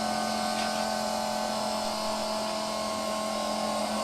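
Steady mechanical hum with a constant low tone over a broad hiss, unchanging throughout.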